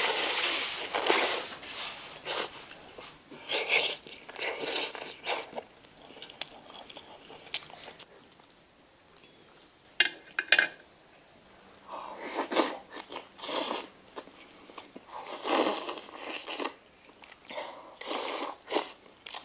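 People chewing and biting into large chunks of stewed mutton on the bone, in irregular bursts with short pauses.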